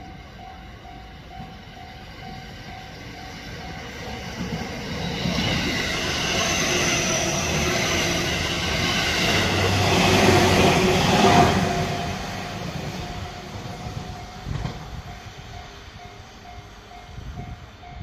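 An electric commuter train on the Tokaido Line runs past at a level crossing. Its sound swells from about four seconds in, is loudest around ten to eleven seconds, then fades. Throughout, the level-crossing warning bell rings in a steady electronic ding about twice a second.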